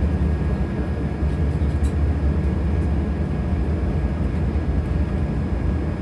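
Airliner cabin noise while taxiing after landing: a steady low rumble of the jet engines and the wheels rolling on the pavement, with a faint steady whine above it.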